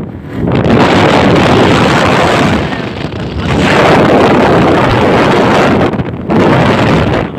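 Wind buffeting the microphone of a phone held on a moving motorbike: a loud rushing that swells and eases, dipping briefly a few times.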